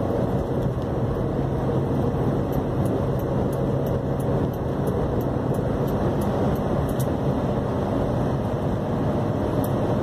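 Steady engine and tyre noise inside a car's cabin as it cruises along a highway, with a low, even hum.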